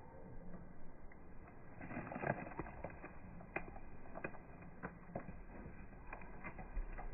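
Footsteps of several people walking on a concrete path: a string of light, irregular taps beginning about two seconds in, over a faint steady background hiss.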